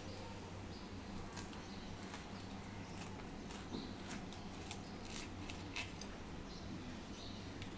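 Small knife cutting through a toasted bread sandwich on a plastic chopping board: a run of faint, crisp crunches as the blade saws through the toasted crust, over a low steady hum.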